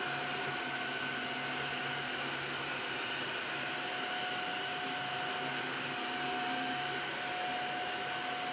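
Tineco S3 cordless wet-dry floor washer running steadily as it scrubs up a dried coffee spill from the floor: an even motor rush with a steady high whine.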